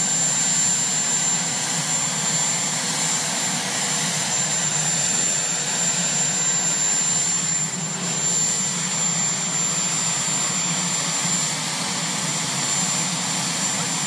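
Marine One, a Sikorsky VH-3D Sea King helicopter, running its turbine engines at ground idle after landing: a steady high-pitched turbine whine over an even engine rush.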